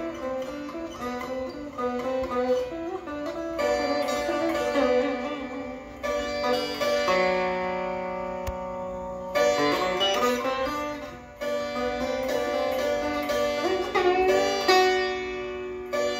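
Sitar played solo: plucked melodic phrases with notes sliding in pitch, and a single long note about halfway through that rings on and slowly fades before the phrases pick up again.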